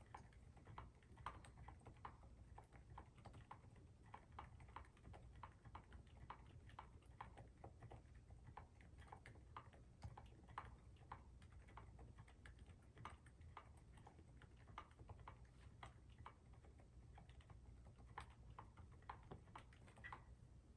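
Typing on a mechanical keyboard with lubed and filmed silent Alpaca switches, in a KBD Fans 5° case with a dampener: a steady run of soft, muted keystrokes, several a second, with a faint low hum underneath.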